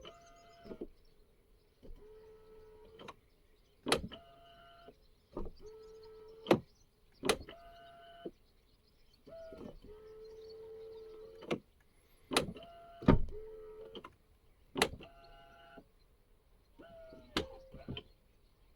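Soft-close door latch on a 2017 Porsche Cayenne, an aftermarket AliExpress unit, working over and over. Its electric cinching motor whirs for half a second to a second and a half at a time, between sharp clicks and clunks of the latch and door. The motor noise and a short delay are the known drawbacks of these cheap closers.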